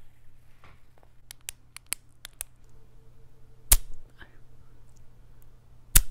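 ASMR-style sounds made right at a microphone: a quick run of sharp clicks, then two loud knocks about two seconds apart, the second near the end.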